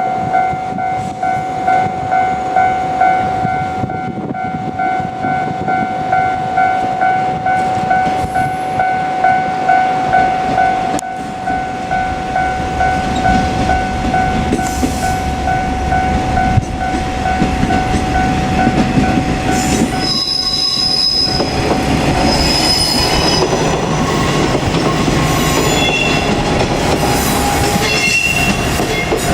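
Level crossing warning bell ringing in a steady two-a-second ding. About halfway through, a JR Kyushu KiHa 47 two-car diesel railcar set is heard approaching, its engine and wheel rumble building to pass close by, with brief high-pitched squeals from the wheels.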